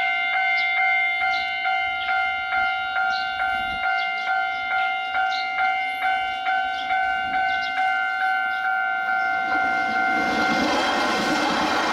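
Taiwan Railway level-crossing warning bell ringing in a steady rhythm of a little over two strokes a second, warning of an approaching train. About ten seconds in, the train's running noise rises and covers the bell.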